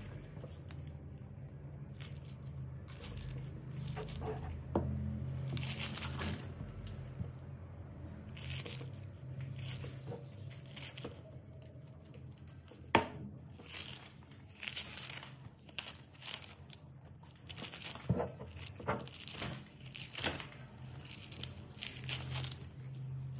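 Dry coconut husk fibre (coir) being torn and pulled off a sprouted coconut by hand, a long run of irregular ripping and scratching strokes with a few sharp clicks, as the husk is stripped away to clean the nut.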